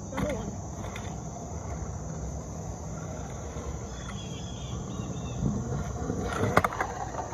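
Stunt scooter wheels rolling on asphalt, with a sharp clack of the scooter hitting the pavement about six and a half seconds in. A steady high drone of insects runs underneath.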